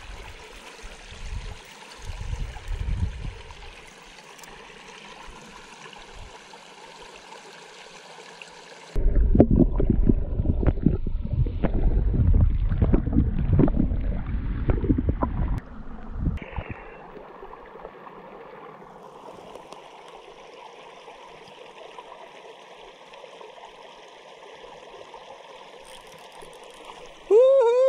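Small creek trickling and running steadily over its bed. For about six seconds in the middle, with the microphone under the water, it turns into a loud, low churning gurgle, then returns to the steady trickle.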